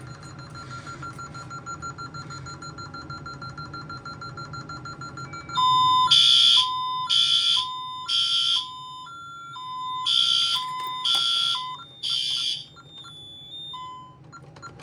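Honeywell Vista alarm system going off after a door is opened without the code. First the keypad beeps fast and steadily through the entry delay. About five and a half seconds in, the alarm sounder starts: three short loud blasts, a pause, then three more, with the keypad beeping between them.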